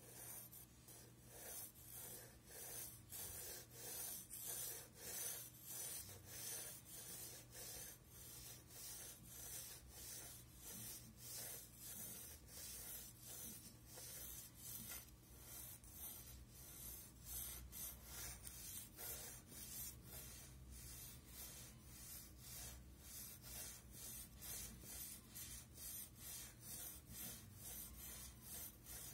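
Graphite pencil scratching across drawing paper in quick, repeated hatching strokes, about two a second, faint.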